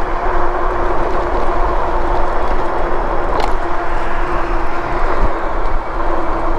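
Riding noise from an electric bike on a concrete sidewalk: steady wind rush over the chest-mounted camera's microphone and tyre noise, with a steady hum from the hub motor under it. A brief click about three and a half seconds in and a low knock a little after five seconds.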